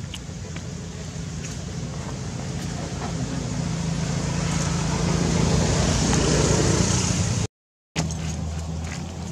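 A motor engine running steadily with a low hum, growing louder over several seconds, then cut off abruptly near the end before a quieter hum returns.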